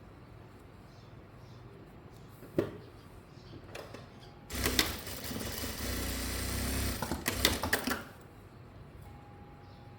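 Sewing machine stitching in one short run of about three seconds, with a few sharp clicks before it and just before it stops.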